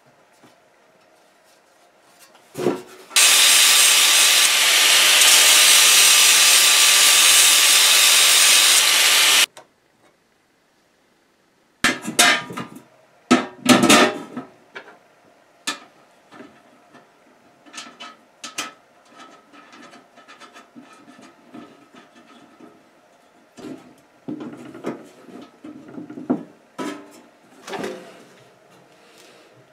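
A loud, steady rushing noise with a faint steady whine lasts about six seconds and cuts off abruptly. After a short silence come scattered clicks, knocks and scrapes of metal stove parts handled and fitted onto a steel ammo-can stove body.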